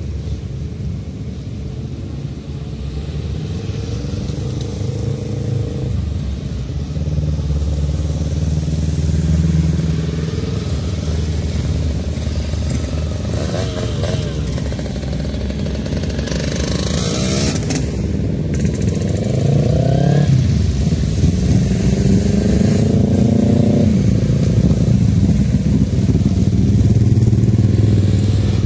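Small motorcycles riding past one after another, their engines revving up and easing off several times, getting louder toward the end.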